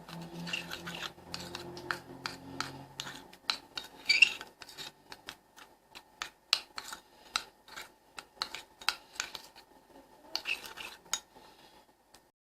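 A spoon stirring and scraping a thick paste of baby powder and rose water in a bowl, clinking against the sides in a run of short strokes a few a second, stopping near the end.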